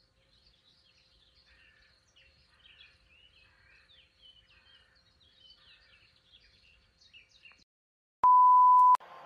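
Faint birdsong of many short chirps and calls. Near the end a loud, steady beep lasts under a second: a TV test-card tone played with a colour-bar transition graphic.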